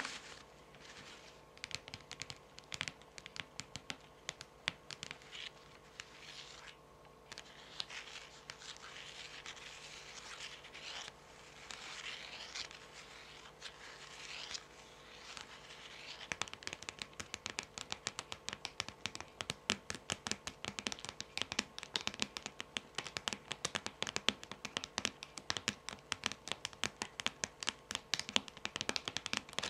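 Long fingernails scratching and sliding across the glossy surfaces of a stack of tarot cards. About halfway through this gives way to quick, fast nail tapping on the cards, several taps a second.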